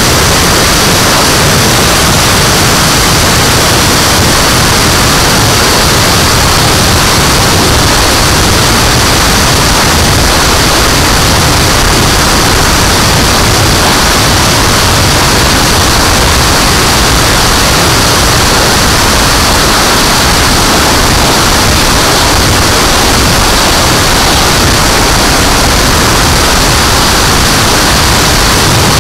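Steady, loud rush of airflow and turbine noise heard from on board a turbine-powered RC jet in flight, with a constant high hiss and no change in level.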